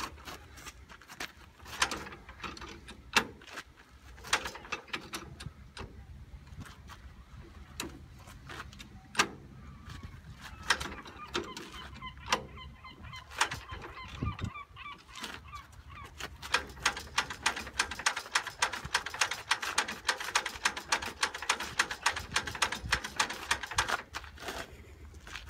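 1930s Fordson tractor's four-cylinder engine being hand-cranked and not catching: irregular clanks and knocks, then a fast run of clicking from about two-thirds of the way through as the crank is spun. A squeaky, honk-like tone sounds for a few seconds near the middle.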